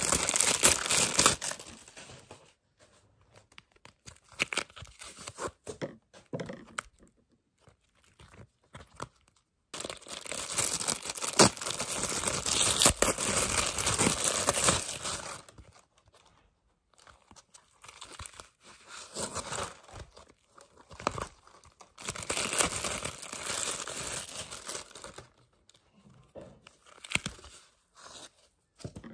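A printed wrapper around a photocard binder being torn open and crinkled by hand, in several bursts with short pauses between them.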